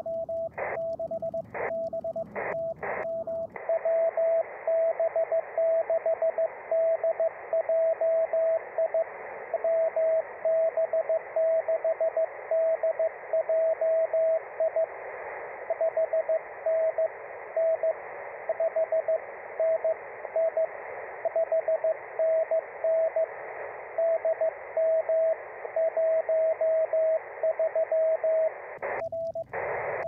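Morse code (CW) from an amateur radio's speaker: one steady mid-pitched tone keyed in dots and dashes. For the first few seconds short bursts of hiss break in, then a steady band of receiver hiss comes up under the tone about three and a half seconds in.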